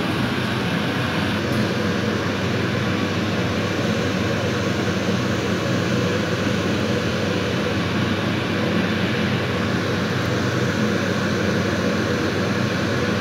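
A fan running with a steady whooshing hum.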